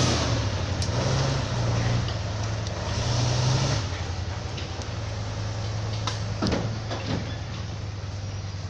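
A heavy machine's engine running steadily, with a few light clicks and knocks over it.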